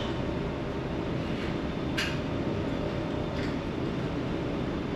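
Steady low rumble and hum aboard the passenger ferry Ogasawara Maru underway at sea, with a single sharp click about two seconds in.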